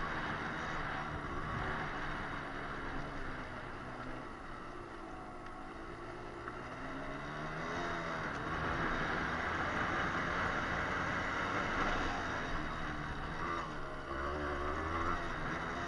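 Yamaha 125 cc dirt bike engine under way off-road, its pitch rising and falling with the throttle, with wind noise on the helmet-mounted microphone.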